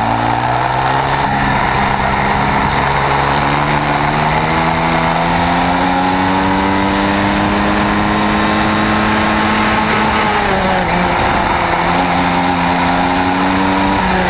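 Swissauto 250 twin-cylinder two-stroke kart engine running at full load, heard from on board. Its revs climb steadily for about ten seconds, fall off, pick up briefly and fall again near the end.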